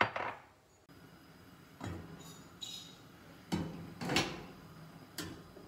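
Several dull knocks and clunks over the faint steady hiss of a stainless pot of fish in vinegar and water at a rolling boil.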